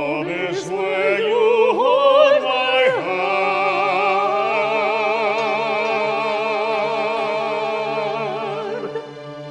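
Operatic singing with wide vibrato over a sustained instrumental accompaniment: a few quick moving notes, then one long held high note that ends about nine seconds in.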